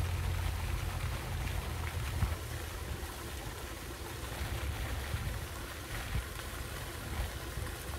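Wind rumbling on the microphone, a steady low rumble, with an even hiss of outdoor noise over it.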